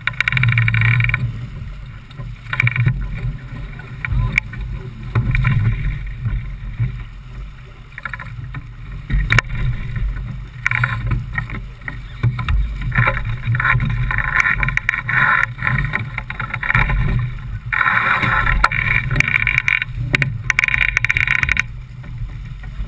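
Water rushing and splashing along the hull of a J/24 keelboat under sail in choppy sea, coming in uneven surges over a steady low rumble.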